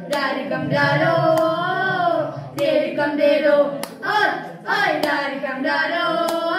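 Boys singing a song together into a microphone, in long gliding notes with short breaks between phrases. A sharp click sounds about every second and a quarter, keeping a beat.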